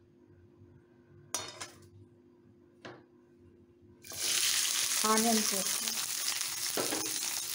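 Chopped onions dropped into hot oil in a kadai, setting off a loud, steady sizzle and hiss that starts suddenly about four seconds in. Before that there is only quiet and a couple of brief clatters.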